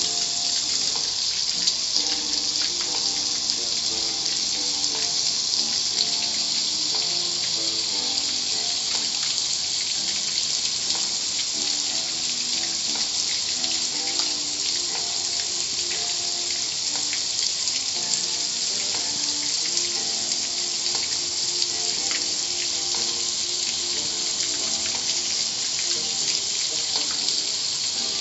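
Car wash water jets spraying steadily, a constant hiss, with faint music playing underneath.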